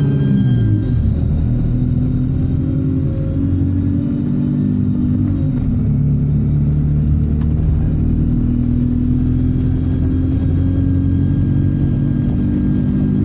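Alexander Dennis Enviro 200 single-deck bus's diesel engine running under way, with a thin, steady turbocharger whine above the engine note. The engine note changes pitch a couple of times, about a second in and again about five seconds in.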